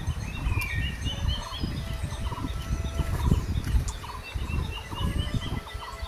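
Forest birds chirping in quick runs of short repeated notes, over an irregular low rustle and rumble as dry teak leaves are handled and pulled apart.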